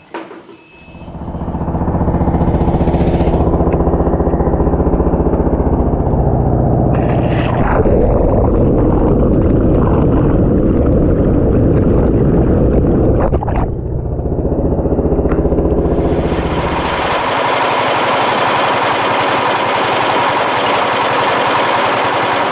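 Small boat engine starting up and running steadily, its speed rising about a third of the way in and easing off a few seconds later. About two-thirds of the way through, a loud steady rushing hiss takes over as the engine's low note fades.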